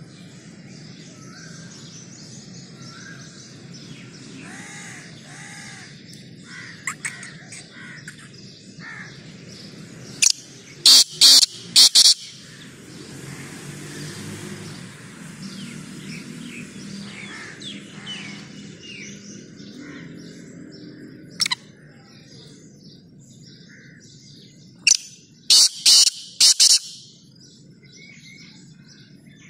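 Black francolin calling twice, each phrase a short note followed by three loud quick notes, the first about ten seconds in and the second near the end. Other small birds chirp faintly in the background.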